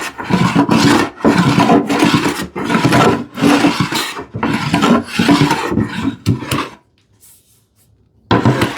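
A hand plane is pushed across a glued-up wooden panel in quick rasping strokes, about seven in a row, then a short pause, then more strokes near the end. It is set for a deeper cut and mostly skips over the uneven surface and glue lines rather than taking full shavings.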